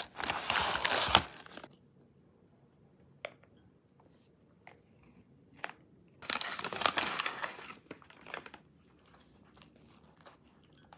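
Paper wrapping crinkling as a pastry is handled and unwrapped: a loud rustle in the first second and a half, a few faint ticks, then a second crinkling burst about six seconds in.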